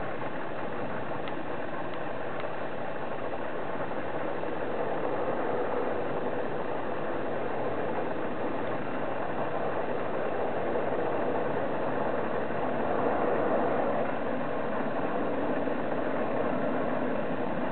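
Jet airliner on approach to land, heard from below at a distance: a steady jet drone that grows slowly louder as it nears.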